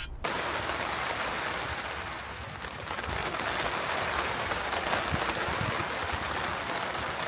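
Rain falling steadily, a dense even hiss that starts suddenly just after the beginning.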